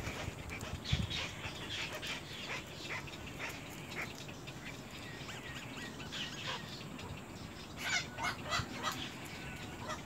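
Little egret chicks in the nest giving short, sharp chattering calls and clicks, scattered through, with a quick run of several calls about eight seconds in.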